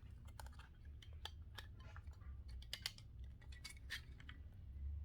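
Faint, irregular clicks and taps of a plastic bicycle phone holder being handled, over a low steady hum.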